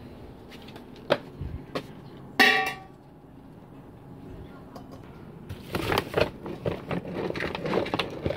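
Kitchenware being handled: a few light knocks, then one ringing clang about two and a half seconds in. From about five and a half seconds, a run of clattering as plastic containers and lids are shuffled.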